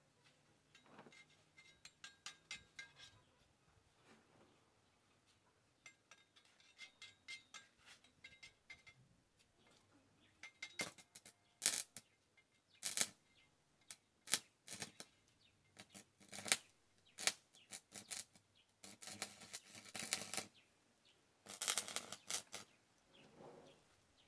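Scrap steel and tools being handled: a series of sharp metallic clinks and knocks, some of the early ones ringing briefly, with two longer scraping sounds near the end.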